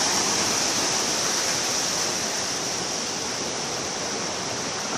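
Steady rushing of the Pacolet River's flowing water, an even noise with no breaks.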